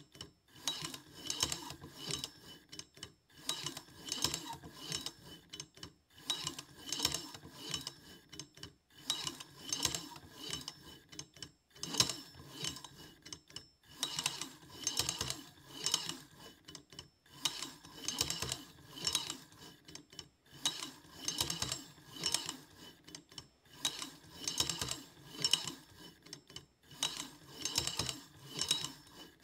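Automated stepper-motor dialer turning a safe combination lock's spindle back and forth, with the lock's wheels and lever clicking and rubbing as it takes contact-point readings to graph wheel 2. The runs of whirring and clicking repeat in cycles about every three seconds, with a short pause between each.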